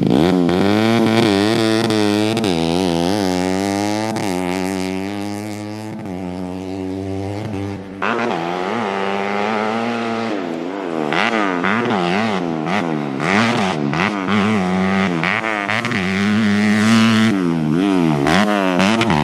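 Modified 130cc bebek (underbone) engine in a grasstrack dirt bike, revved hard and ridden, its pitch climbing and dropping again and again as the throttle opens and closes. The sound jumps abruptly about eight seconds in.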